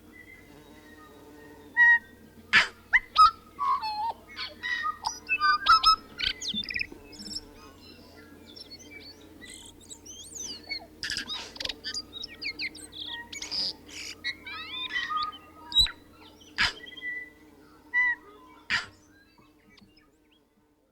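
Tui singing: a varied run of sliding, looping whistled notes mixed with sharp clicks, in phrases broken by short pauses, over a faint steady low hum. The song stops shortly before the end.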